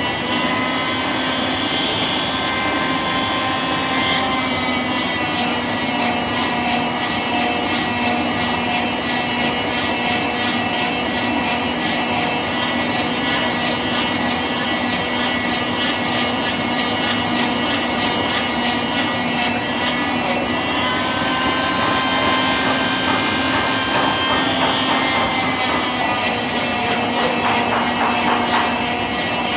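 Shop vacuum running steadily with a whining motor over the rush of air. Its whine shifts in pitch about four seconds in and again around twenty-one seconds, as the airflow through the hose changes.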